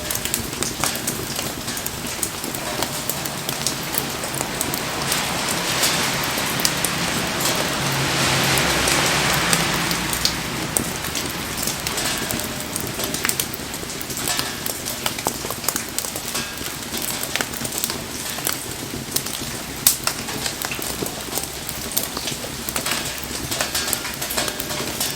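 Wood bonfire burning in the rain: steady rain patter with sharp crackles and pops from the fire, and a louder rush of noise for a few seconds about a third of the way in.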